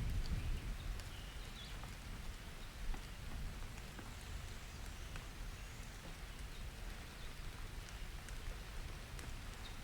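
Steady, fairly soft summer rain with scattered drop ticks, and low rumbles of distant thunder at the start and briefly again about three seconds in.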